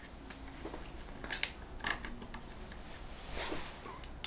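A few quiet clicks and scrapes of hard plastic as hands fit and turn a Quad Lock wireless charging head on its handlebar mount.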